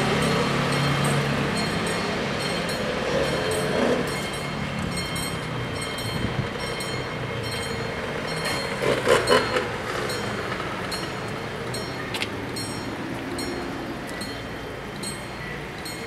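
Level-crossing warning bells ringing in steady, evenly repeated strokes while the barriers are down, a warning that a train is due. A low vehicle hum at the start fades away, and a short louder sound comes about nine seconds in.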